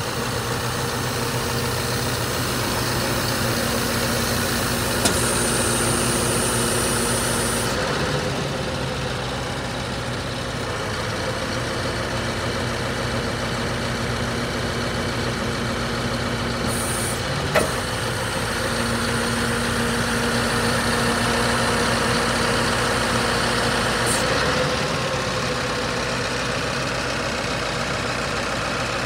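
Scania R560's V8 diesel engine idling steadily, with two sharp clicks, one about five seconds in and one about seventeen seconds in.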